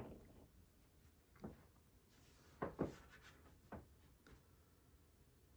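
A few soft, scattered clicks and knocks against near silence, the sound of the Casablanca wall control clanking against the wall as the fan speed is changed; the fan motor itself is barely heard.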